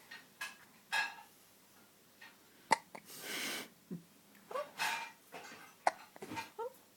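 Baby hiccuping: several short, sharp hiccups a few seconds apart, with small breaths and baby noises between them.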